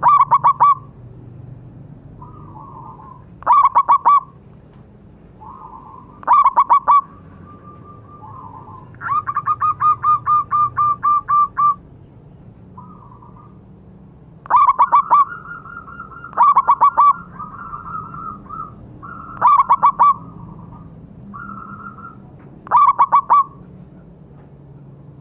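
Zebra dove (perkutut) cooing: loud phrases of a few quick staccato notes repeated every two to three seconds, with one longer run of about ten even notes in the middle, and softer notes between the phrases.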